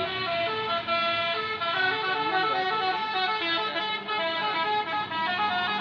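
Tour bus's basuri musical air horn playing a tune, its notes stepping up and down several times a second without a break.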